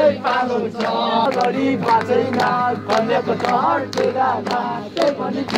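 A crowd of people singing together, many voices at once, with short sharp beats among the singing.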